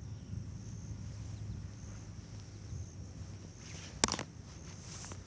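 Outdoor ambience with a steady low rumble and a thin, steady high-pitched hum, broken by one sharp click about four seconds in.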